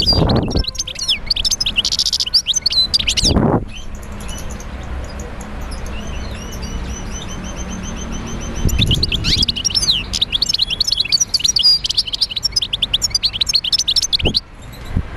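Many small birds chirping rapidly and over one another, in two long spells with a lull of about five seconds between them. Two brief low rushing sounds come at the start and about three and a half seconds in.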